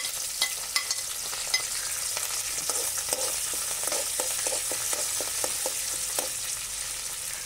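Shallots, dried red chillies and curry leaves sizzling in hot coconut oil in a metal kadai, for the tempering of a curry. A steady frying hiss runs under short clicks and scrapes as a spoon stirs in the pan, busiest in the middle of the stretch.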